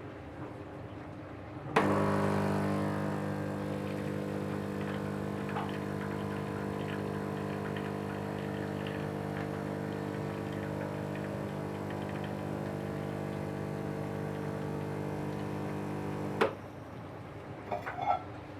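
DeLonghi 35.31 espresso machine's vibratory pump buzzing steadily for about fifteen seconds, pushing water through the coffee as an espresso shot is pulled. It starts and cuts off suddenly, and a few light clicks and knocks follow near the end.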